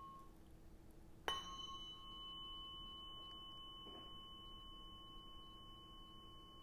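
Tuning fork struck once about a second in with a sharp click, then ringing steadily as a clear sustained tone with a higher overtone, as used in Biofield Tuning sound healing. A fainter tone from an earlier strike fades out just at the start.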